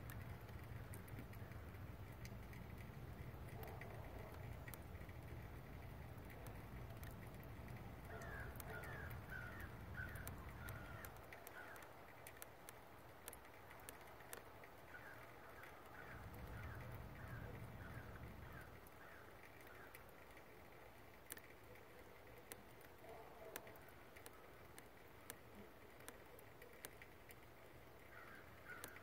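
A distant chainsaw drones faint and low, stops about eleven seconds in and runs again for a few seconds later on. Birds call in three quick runs of short notes over it, and faint ticks are scattered throughout.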